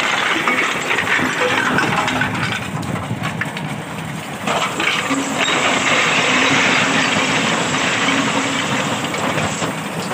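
Mini tractor's 25 HP diesel engine running, growing louder about four and a half seconds in.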